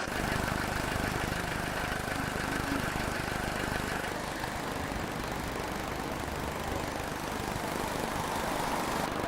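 Heavy vehicle engine running steadily, with a faint high whine that stops about four seconds in.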